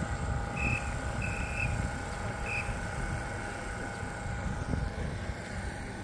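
Steady low rumble of a moving vehicle heard from on board, with a faint constant whine. Three short high beeps sound in the first three seconds; the middle one is longer.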